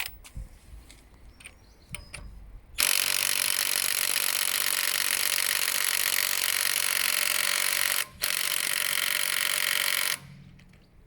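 Cordless impact wrench hammering on a car wheel nut for about seven seconds, with a brief let-off of the trigger about five seconds in. The nut does not come loose, which the owner puts down to it maybe being over-tightened.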